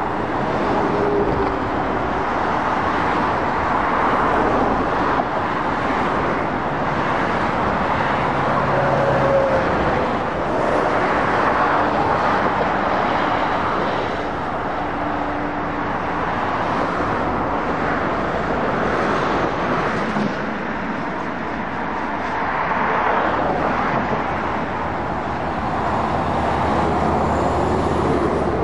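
Steady traffic on a dual carriageway: cars and diesel lorries passing, their tyre and engine noise swelling and fading as each one goes by.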